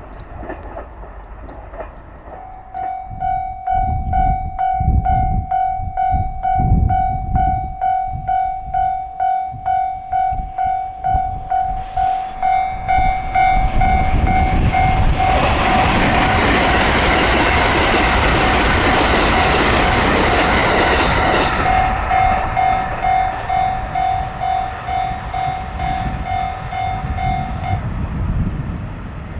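Japanese railway level-crossing warning bell ringing about twice a second while a train passes over the crossing. The train's running noise swells to its loudest for several seconds in the middle and then fades, and the bell stops shortly before the end.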